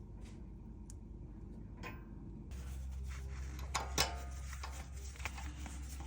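A few faint clicks and two light knocks over a low steady hum.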